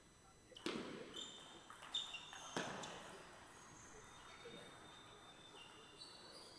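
Three sharp knocks in the first three seconds, the loudest sounds here, over faint, short high-pitched chirping tones that come and go.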